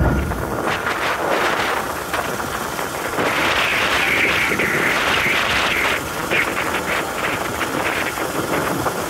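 Motorcycle ride noise: the bike's engine running at road speed under a steady rush of wind, growing brighter for a few seconds in the middle.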